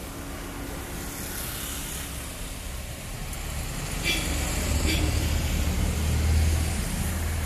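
Skoda Karoq's engine idling with a steady low rumble that grows louder as it goes, with a brief higher hiss about four seconds in.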